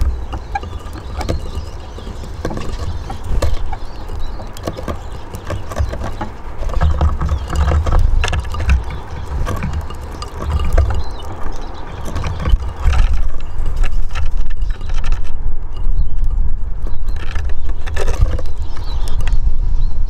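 Eurasian siskins feeding on a wooden bird feeder, their beaks and feet making quick irregular taps and clicks on the seed dish and perches, over a steady low rumble.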